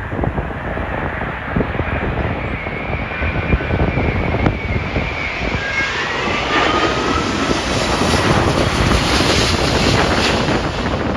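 Landing jet airliner passing low overhead on final approach. Its engine whine glides down in pitch about halfway through, and the engine noise is loudest near the end. Gusts of wind buffet the microphone throughout.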